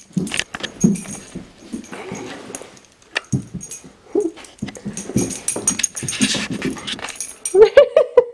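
A husky scuffling and pawing at a clothespin, with scattered clicks and rustles, then a quick run of short, high whines near the end.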